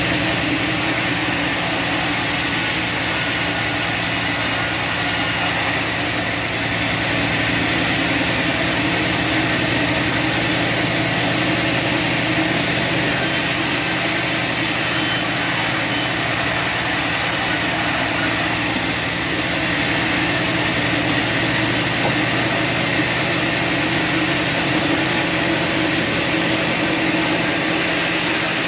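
Bandsaw sawmill running steadily, its engine humming at an even speed under a constant hiss from the band blade.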